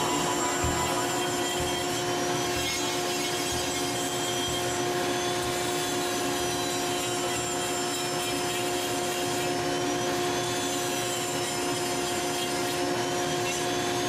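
Foredom flex-shaft rotary tool running steadily with a steady hum while its carbide-tooth burr grinds away white cedar on a decoy head.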